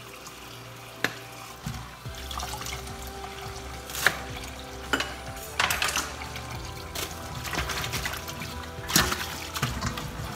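Tap water running into a stainless steel bowl in a steel sink while mustard greens are rinsed, with several sharp clinks and knocks as the bowl and greens are handled.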